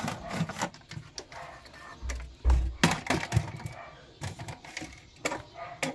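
Plastic clicks and knocks as the rear access cover of an Epson L6170 printer is unlatched by pinching its two clips and pulled off, with a dull thump and a sharp knock a little over two seconds in.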